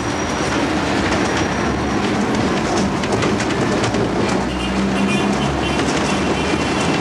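Hong Kong double-decker electric tram running along its rails, heard from inside the car: a steady noise of wheels on rails with a low rumble. A faint high whine comes in past the middle and fades before the end.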